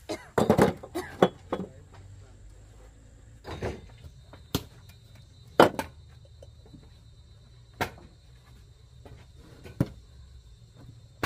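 Sharp knocks and taps: a quick cluster in the first second and a half, then single knocks every second or two, the loudest just past halfway.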